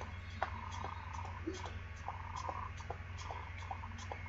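Sneakers tapping on a concrete sidewalk while jogging in place with butt kicks, a light regular patter of footfalls about two to three a second.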